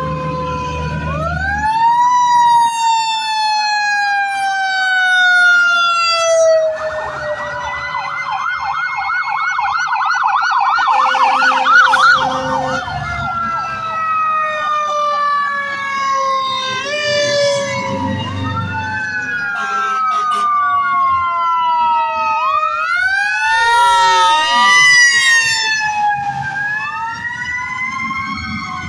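Several fire engine sirens wail and overlap as the trucks pass. Each tone climbs quickly in pitch and then falls slowly. From about seven to thirteen seconds in, one siren switches to a fast yelp.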